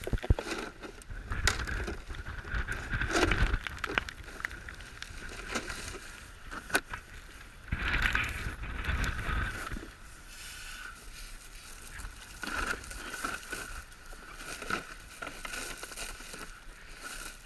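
Goose decoys being handled and pushed into a bag: irregular rustling, scraping and knocking, with louder bouts of handling about a second in and near the middle.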